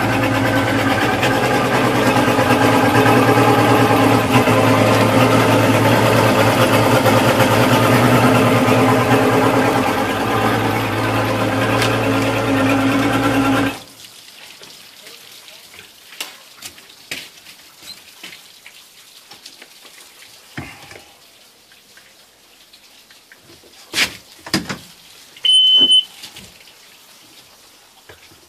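Mercury 135 Optimax direct-injection V6 two-stroke outboard running steadily, then shut off abruptly about 14 seconds in. Scattered light knocks and clicks follow, with a short high beep near the end.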